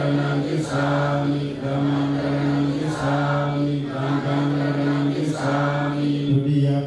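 Voices reciting a Buddhist chant in unison on one steady, monotone pitch, with rhythmic syllables about once a second.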